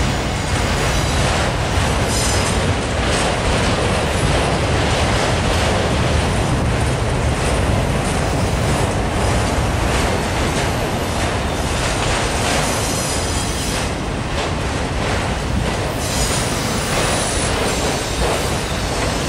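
A loaded autorack freight train rolling past close by: a steady rumble and rattle of steel wheels on the rails, with a few faint high wheel squeals.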